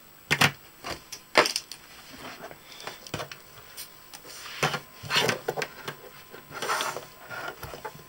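Handling clatter on a workbench: a small circuit board, a power cable and a screwdriver being knocked and scraped about while wires are fitted to the board's screw terminal block. Two sharp knocks in the first second and a half, then scattered clicks and short scrapes.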